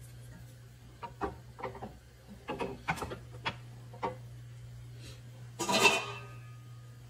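Kitchen utensils knocking and scraping against a pan and plate: a quick run of small clicks and scrapes, then a louder ringing clink about six seconds in, over a steady low hum.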